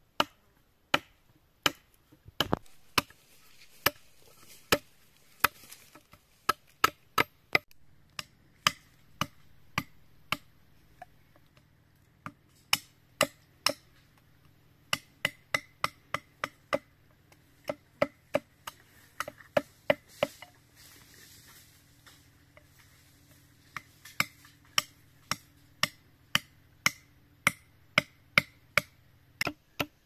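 A broad-bladed knife chopping at a green bamboo stick held on a wooden log, making sharp separate chops. They come irregularly at about one to two a second, with quicker runs now and then.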